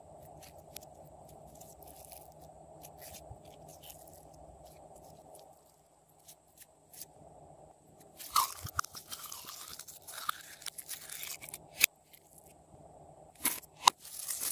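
Hands squeezing and stretching glossy pink slime, making sticky crackles and small clicking pops. It is quiet at first with only a few scattered clicks, then a dense run of crackling starts about eight seconds in, and there are a few sharp, loud pops near the end.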